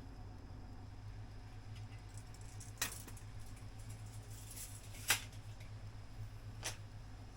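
Wood fire in a small campfire stand crackling, with three sharp pops, the second the loudest, over a steady low rumble.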